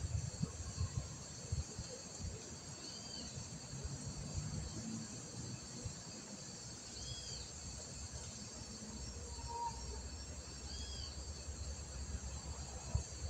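Insects trilling steadily, with a short arched bird-like call repeating about every four seconds and faint low rustling noise.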